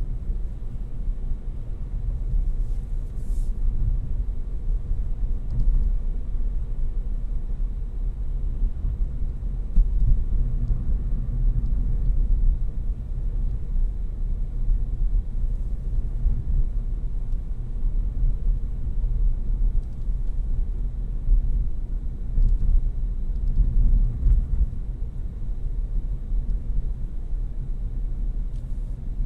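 Suzuki Swift Sport ZC32S being driven: a steady low rumble of engine and road noise.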